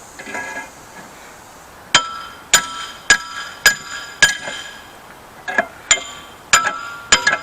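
Hammer blows on the steel spring of a forged blacksmith's post vise, each a sharp metallic strike with a bright ring after it. There are about five evenly spaced blows roughly two a second, a short pause, then several more. The spring is being hammered to bend it out and stays springy, having kept its temper.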